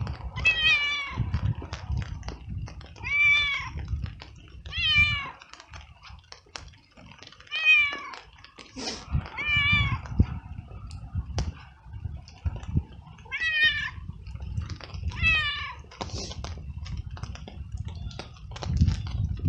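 Tabby stray cat meowing very loudly and over and over, about seven long meows roughly two seconds apart, each rising then falling in pitch: a cold, hungry stray calling for food.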